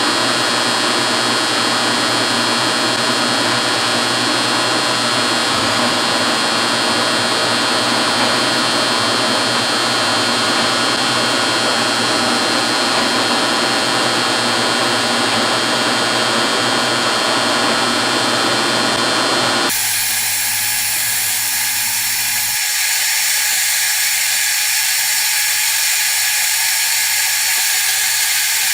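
1956 Axelson metal lathe running steadily, a constant machine sound with a mix of steady tones. About two-thirds of the way through the sound changes abruptly, its lower part dropping away while the higher part continues.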